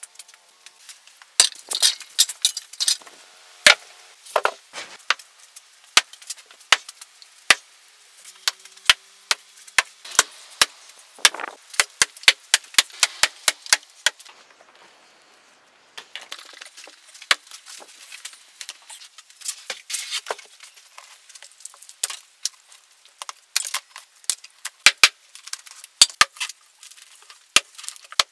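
Small hatchet chopping the rotten wood out of the inside of a hollow log: a long run of sharp chops and cracks, with a pause of about two seconds around halfway.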